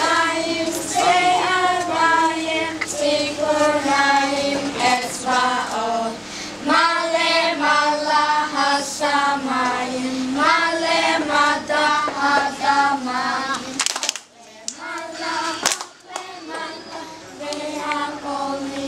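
A group of children singing a song together in unison. The singing breaks off for a moment about two-thirds of the way through, then carries on.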